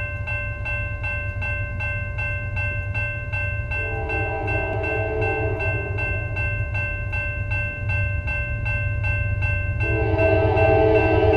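A railroad grade-crossing bell ringing steadily, about two and a half strokes a second, as an approaching diesel locomotive sounds its multi-chime air horn: a blast of about two seconds some four seconds in, and another starting near the end. A steady low rumble runs underneath and grows as the train comes closer.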